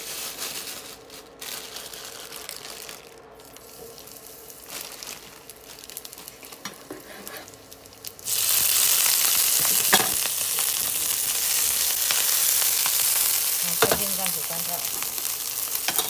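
Sakura shrimp and cut scallions going into hot oil in a nonstick frying pan. For the first half there are only light clicks and a quiet crackle. About halfway through, the oil suddenly breaks into a loud, steady sizzle as the scallions go in, with an occasional knock against the pan.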